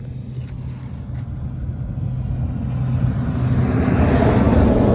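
A vehicle's steady engine hum, with road noise that builds and is loudest near the end, then drops away sharply: a motor vehicle passing close by.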